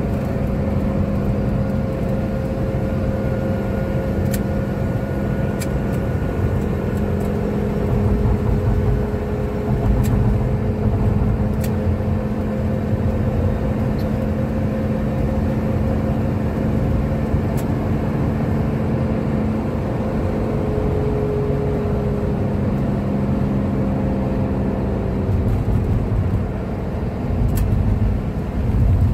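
Toyota Coaster minibus cruising at highway speed, heard from inside the cabin: a steady engine drone over road and tyre noise, with a few faint ticks.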